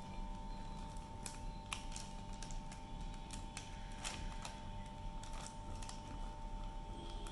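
Clear plastic zip-lock bag crinkling and rustling, with irregular clicks and light taps as a metal heart-shaped cookie cutter is pressed through it into rolled dough on a wooden board. A faint steady hum runs underneath.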